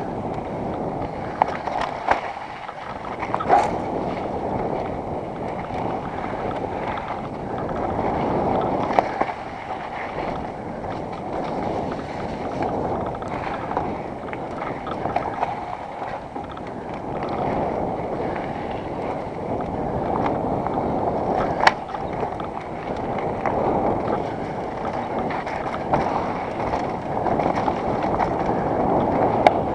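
Mountain bike rolling fast down a dirt trail: a steady rush of wind on the helmet camera's microphone and tyres on dirt, with scattered sharp knocks and rattles from the bike over bumps.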